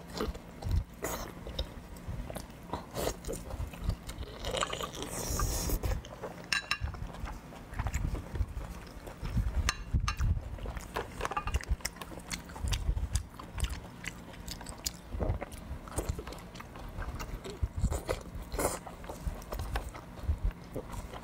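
Close-miked eating: biting into and chewing braised lamb colon, with wet mouth clicks, smacks and dull low knocks coming in irregular bursts.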